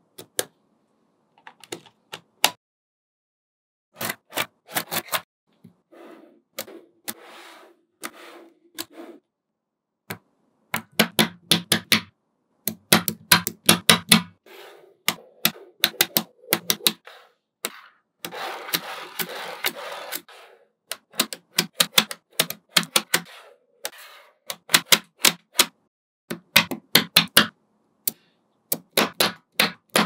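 Small magnetic balls clicking and snapping together in quick runs of sharp clicks with short pauses between, as they are placed one by one into a build. About two-thirds of the way through, there are a couple of seconds of continuous rattling.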